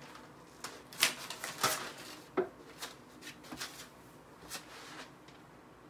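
A few scattered light clicks and taps, bunched between about one and two and a half seconds in, then fainter ticks.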